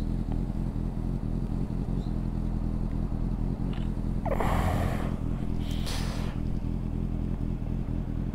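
Motorcycle engine idling steadily, with two brief louder noises about halfway through.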